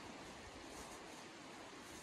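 Faint, steady rushing of a flowing river, with soft rustling as a fabric stuff sack is handled.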